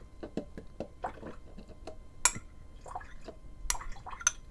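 Cut avocado pieces scraped from a bowl with a utensil and dropped into a Magic Bullet's plastic blender cup: a run of light taps and ticks, with a sharper click about two seconds in and two more near the end.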